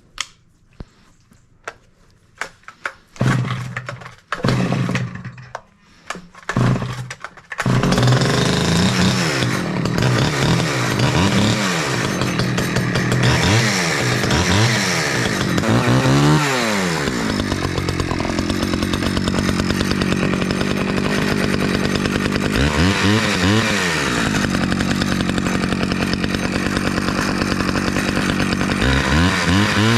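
Small two-stroke Stihl chainsaw being started: a few short pulls and sputtering bursts, then it catches about seven seconds in and runs steadily, revving up and falling back several times as it cuts ash wood.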